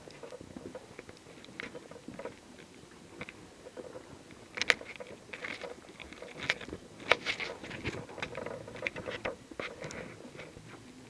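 Footsteps crunching on a gritty stone-and-gravel floor in an irregular pattern, with a few sharper clicks, in an enclosed tunnel.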